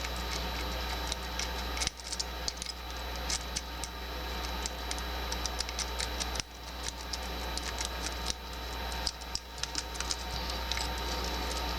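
A rake pick scraping and clicking in the keyway of a Doit 40mm laminated padlock: rapid, irregular small metal clicks as the rake is worked across the pins, without opening the lock. A steady low hum runs underneath.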